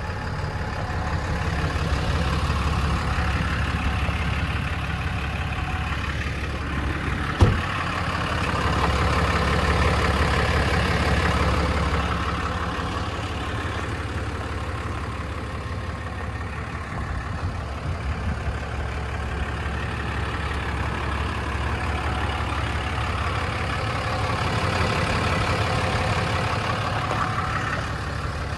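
Engine idling steadily, with one sharp knock about seven seconds in.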